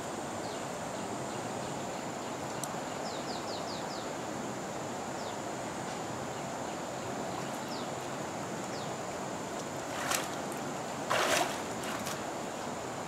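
Water sloshing in a shallow stream as a person wades and handles a pump's intake hose, over a steady rushing ambience with a thin, steady high whine and a few faint short chirps. Two louder splashes come near the end, about a second apart, as she steps out of the water.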